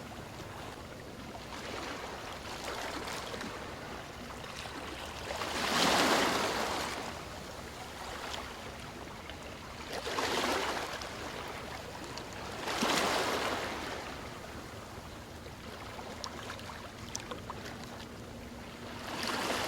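Gentle waves washing onto a sandy beach: a steady hiss of surf, with louder breaking waves about six, ten and thirteen seconds in and another building at the very end.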